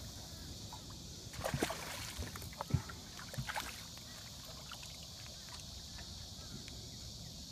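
Light water splashes and knocks beside a small boat as a hooked striped bass is held alongside, clustered from about a second and a half in to about three and a half seconds. Under them runs a steady high hiss.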